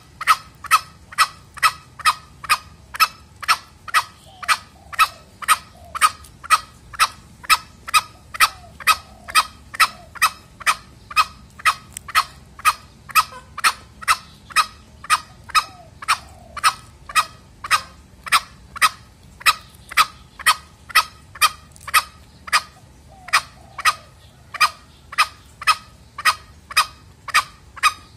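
Lure calls of a male green junglefowl: short, sharp notes repeated steadily about twice a second, with a few fainter, lower calls every few seconds.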